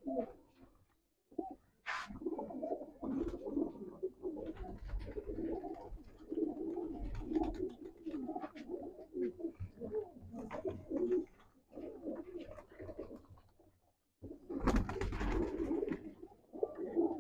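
Many domestic pigeons cooing together in a crowded loft, the calls overlapping into a continuous low murmur with a couple of short pauses. A brief rustling burst comes near the end.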